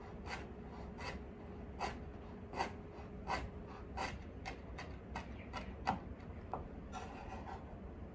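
Chef's knife chopping a rolled bundle of kaffir lime leaves on a wooden cutting board: about a dozen separate knife strikes onto the wood, slow at first and quicker past the middle. Near the end comes a short scrape of the blade across the board as the chopped leaves are gathered.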